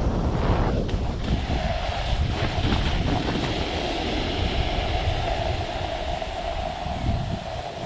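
Wind buffeting the microphone over the hiss of a snowboard sliding through fresh powder snow. A steady hum runs through it from about a second and a half in.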